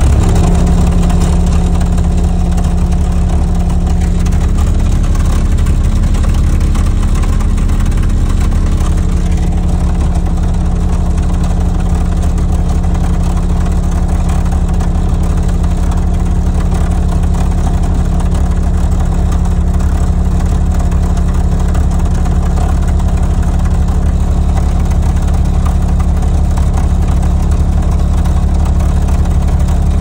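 A 35 Hz test tone played loud through a car audio system's subwoofers at about 2,500 watts: a steady deep bass drone. A loose 6x9 speaker rattles along with it.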